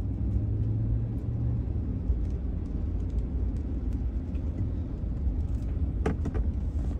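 Low, steady rumble of a car's engine and tyres heard from inside the cabin while driving slowly on a wet road. A short burst of clicks comes about six seconds in.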